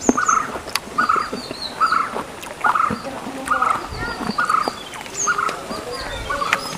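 An animal calling outdoors in short, evenly repeated notes, a little more than one a second, with higher bird chirps in between.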